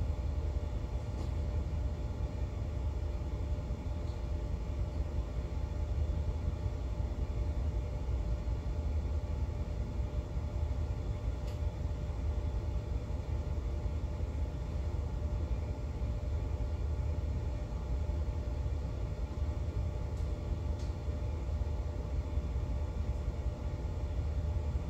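Superyacht's main engines idling: a steady low rumble with a faint even hum above it.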